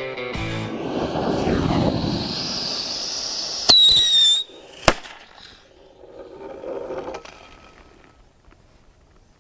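Small firework rockets strapped to a toy monster truck burning with a loud fizzing hiss, then a shrill whistle for under a second about four seconds in, followed by a single sharp bang about half a second later; fainter fizzing fades out after.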